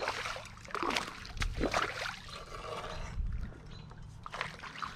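Creek water splashing and sloshing in several irregular bursts.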